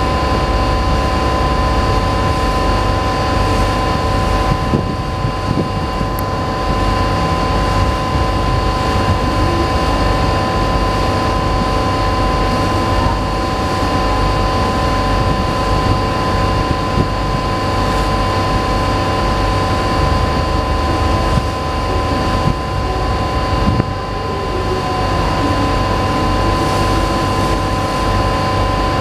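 Ship's engines droning steadily: a low rumble with a constant high-pitched whine over it.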